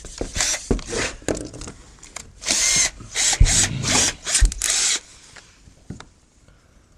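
Cordless drill driving a screw into timber in a series of short bursts, with a few knocks among them; it stops about five seconds in.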